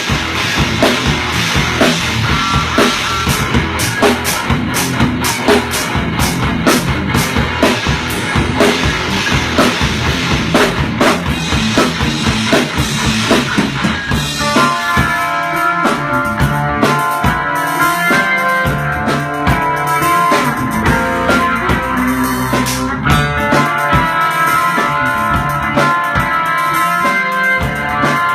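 Rock music: a full drum kit and guitar playing together. About halfway through, the heavy drumming drops back and the guitar's clear, ringing note lines come to the front over lighter percussion.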